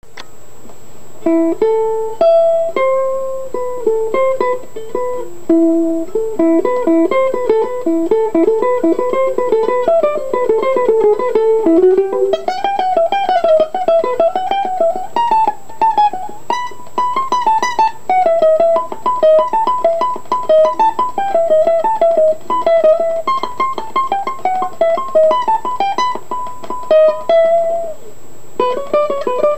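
A small-bodied six-string acoustic guitar played solo with the fingers: a slow line of single plucked notes, then from about twelve seconds in a fast run of rapidly repeated notes.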